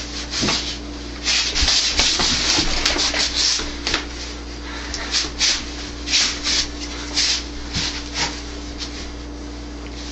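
Sleeved arms brushing and rubbing against each other in quick, irregular swishes during sticky-hands (chi sao) drills, over a steady low hum.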